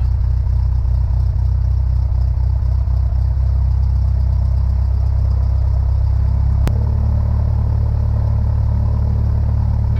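Cessna 172 Skyhawk's four-cylinder piston engine idling on the ground, a steady low drone heard inside the cabin. A single sharp click comes about seven seconds in.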